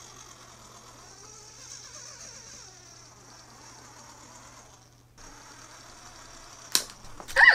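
Faint whine of the Sphero Bolt robot ball's small drive motors as it rolls over carpet, wavering in pitch as it speeds up and turns. Near the end there is a sharp click and then a brief pitched sound.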